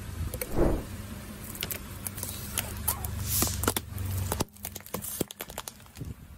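A car tyre rolls over small plastic bottles filled with coloured liquid, crushing and bursting them. There is a loud thump about half a second in, then a run of sharp cracks and snaps of plastic. Under it is the car's steady low engine hum, which fades out about two-thirds of the way through.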